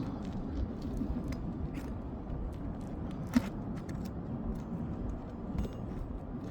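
Hand tools scraping and tapping on roof shingles during a shingle removal, scattered light clicks over a steady low rumble of wind on the microphone, with one sharper tap about three and a half seconds in.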